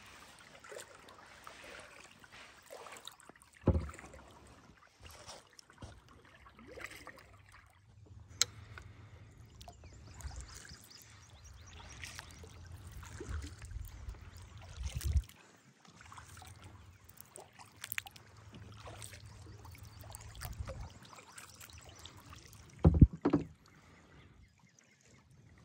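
Kayak being paddled, with water splashing and dripping off the paddle. The paddle knocks sharply against the plastic hull about four seconds in, and twice in quick succession near the end, which is the loudest moment. A low rumble comes and goes in between.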